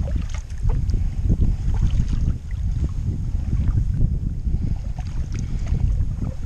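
Wind rumbling on the camera microphone, with light splashes and drips as a kayak paddle dips into calm water.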